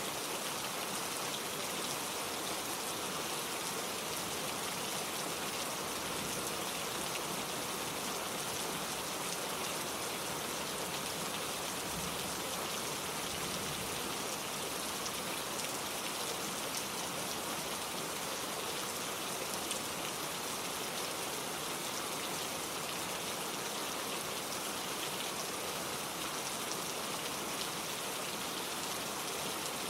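Steady gentle rain falling, an even patter of drops on surfaces with no thunder.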